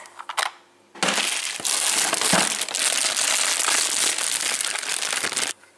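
Plastic crinkling and crackling, like packaging being handled, starting about a second in and lasting roughly four and a half seconds.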